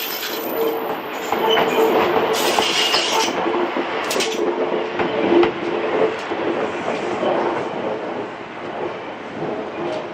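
New Sotetsu 12000 series rail cars being hauled slowly through a level crossing, wheels clacking over the rail joints with some intermittent wheel squeal; the sound eases off over the last few seconds as the cars move away.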